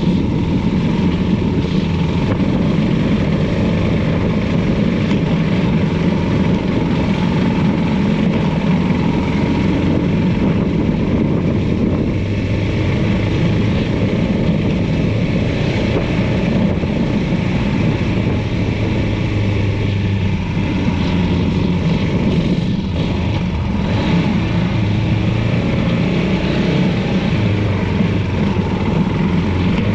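Motorcycle engine running steadily while being ridden, with a constant low drone.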